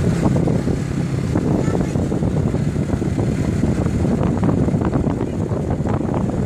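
Motorcycle riding along at low speed, its engine running under a loud, gusty rumble of wind on the microphone.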